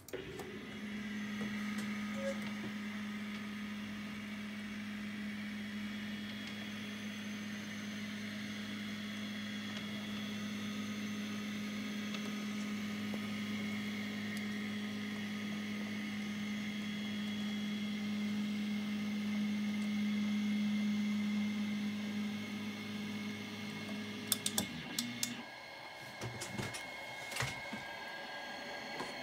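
Three Z-axis stepper motors of a 3D printer driving the bed slowly on lead screws during a homing move (G28), a steady low hum that stops suddenly about 24 seconds in. A few sharp clicks follow near the end.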